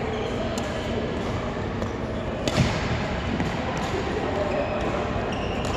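Indoor sports-hall noise with a few sharp racket-on-shuttlecock hits, the loudest about two and a half seconds in, and brief squeaks of court shoes on the floor mat.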